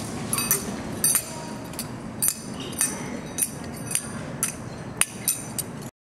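Light metallic clinks, each with a brief high ringing, coming roughly twice a second in an uneven walking rhythm over a low outdoor rumble; the sound cuts off suddenly near the end.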